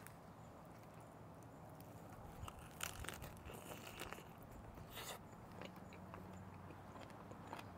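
Close-miked biting and chewing of a crunchy lettuce-leaf wrap, picked up on a clip-on mic. It comes as a string of short crunches, the loudest about three seconds in and again around five seconds.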